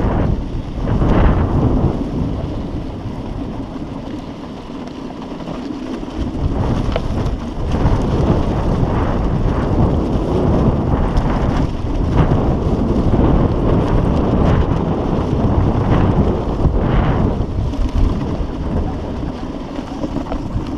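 Strong gusty wind buffeting the microphone, a loud rumbling rush that rises and falls, easing for a couple of seconds about four seconds in.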